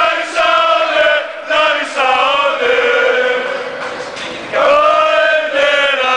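A crowd of football fans chanting together in long, drawn-out sung phrases, in an enclosed escalator passage.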